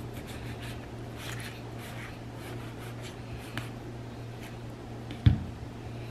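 Chef's knife cutting around an avocado on a wooden cutting board, several faint scraping strokes of the blade through the skin, then one sharp thump about five seconds in. A low steady hum runs underneath.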